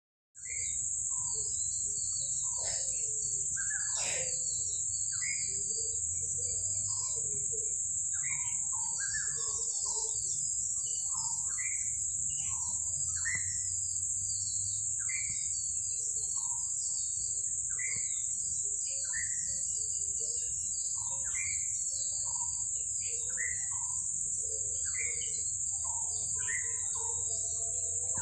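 Birds chirping and calling over and over, short rising and falling notes, over a steady high-pitched insect drone that is the loudest sound throughout.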